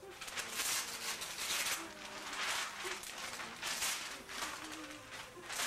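Wrapping paper tearing and rustling in repeated quick bursts as a child rips it off a large gift box.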